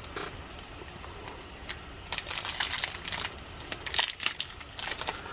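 Foil wrapper of a Leaf Draft football trading card pack crinkling in the hands in short, scattered crackles as it is handled and opened.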